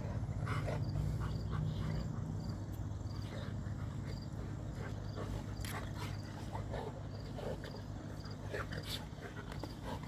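A Boerboel and a Serbian Defense Dog play-fighting, making short, scattered growls and grunts as they wrestle. A steady low hum and a faint, regularly repeating high chirp run underneath.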